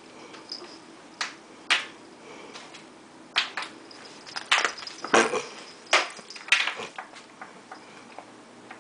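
Ice cube batted by kittens, clattering and skidding across a vinyl floor in a string of irregular sharp clicks and knocks.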